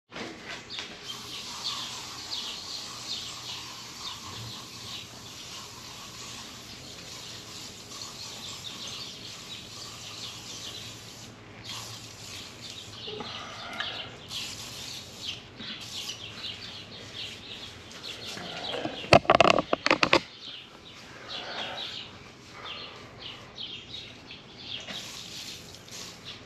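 Birds calling outdoors, with a short cluster of loud knocks or handling noise about 19 seconds in.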